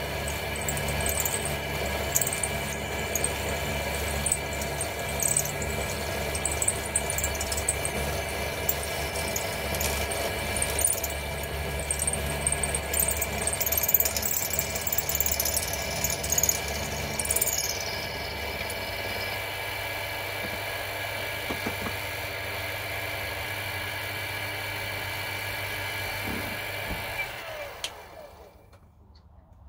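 Mini milling machine running, its end mill cutting a metal plate clamped on a rotary table: a steady motor hum with high-pitched cutting chatter that stops a little past halfway while the motor keeps running. Near the end the machine winds down and falls quiet.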